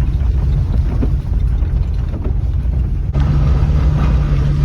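A car's engine running, a steady low rumble with a noisy haze over it. There is an abrupt cut a little after three seconds, after which it is slightly louder.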